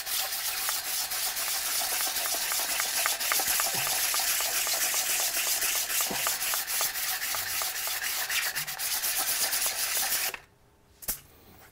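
150-grit sandpaper rubbed back and forth by hand over a 3D-printed ABS part, smoothing its slurry-coated surface: a steady scratchy rasp that stops abruptly about ten seconds in. One light click follows.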